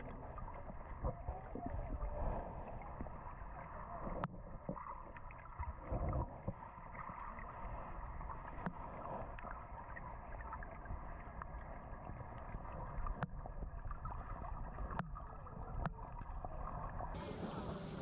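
Muffled underwater sound from a camera below the surface: a steady wash of water with scattered sharp clicks and pops. About a second before the end the camera breaks the surface and the sound suddenly opens up and turns brighter.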